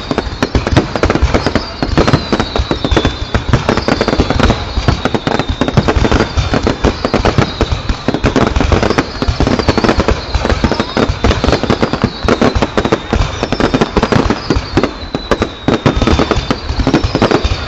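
Fireworks display: a dense, continuous barrage of bangs and crackles from exploding shells, with a high whistle that falls slightly in pitch recurring every second or two.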